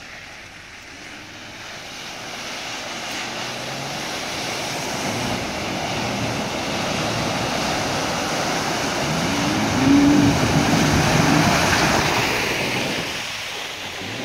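Jeep Wrangler ploughing through a deep muddy water hole: a swelling rush and slosh of water. The engine revs up and back down about ten seconds in, at the loudest point, then the sound eases.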